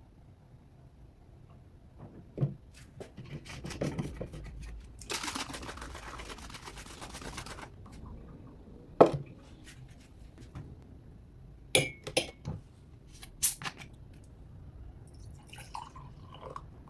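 Small hard objects being handled: scattered knocks and several sharp clinks, one ringing briefly, with a steady hiss lasting about two and a half seconds a few seconds in.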